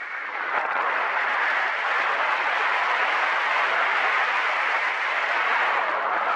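Steady rushing wind noise over the microphone, with a short dip in level right at the start.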